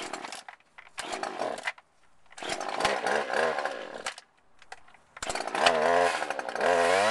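Two-stroke chainsaw being pull-started: a couple of short pulls, then it fires and runs unevenly for about a second and a half before dying. A little over five seconds in, it catches and keeps running, revving up in pitch near the end.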